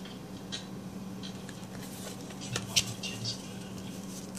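Trading cards being handled and flipped through, with light scattered rustles and one sharper click a little under three seconds in, over a steady low hum.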